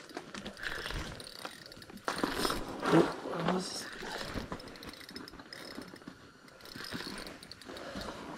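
Spinning reel being cranked under the load of a hooked lake trout, with its gears whirring and clicking. A short voice sound breaks in near the middle.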